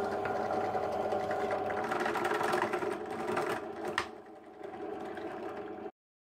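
Benchtop drill press running steadily, its bit drilling into a grey plastic part. About four seconds in there is a sharp click and the sound drops lower, then it cuts off abruptly near the end.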